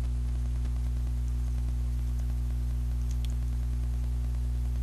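Steady electrical hum with a layer of hiss, the low buzz of mains hum with its overtones, unchanging throughout.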